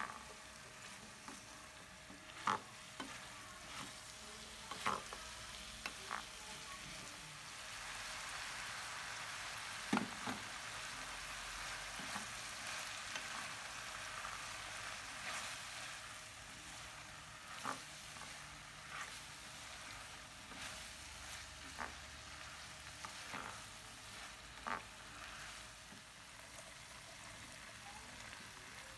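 Chicken and vegetables sizzling in a hot wok as they are stir-fried with a wooden spatula, with sharp knocks of the spatula against the pan every second or few. The sizzle grows louder about eight seconds in and eases off a few seconds after the middle.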